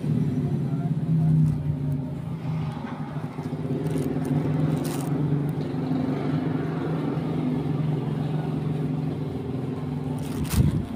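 Motorcycle engine running steadily, with a short sharp knock about ten and a half seconds in.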